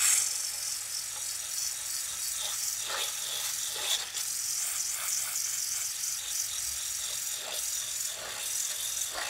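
Cordless drill spinning an abrasive disc pad against a rusty steel truck frame rail: a steady high grinding rasp, with the drill motor's whir underneath, stripping rust and scale down to bare metal. It cuts in abruptly and keeps an even level.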